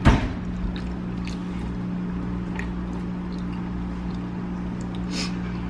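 A steady low machine hum, with a sharp knock right at the start, a few faint clicks, and a short rustle about five seconds in.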